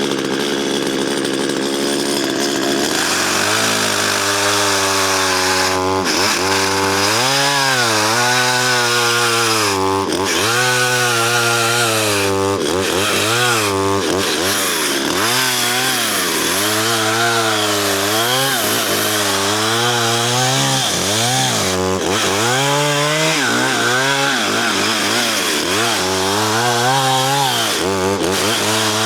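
Chainsaw cutting through a fallen spruce trunk. It runs steady for about three seconds, then the engine pitch drops under load and keeps sagging and recovering as it works through the wood. The chain is dull and needs refiling, so the saw struggles in the cut.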